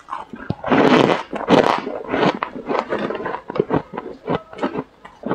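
Powdery freezer frost bitten and chewed close to a lapel microphone: a few loud crunches in the first two seconds, then many short crackling chews.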